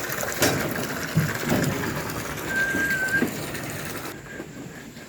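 Short animal calls, several brief pitched cries, with a steady high tone lasting about half a second near the middle.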